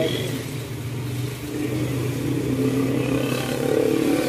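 A motor vehicle engine running steadily, rising in pitch and getting louder near the end as it revs up.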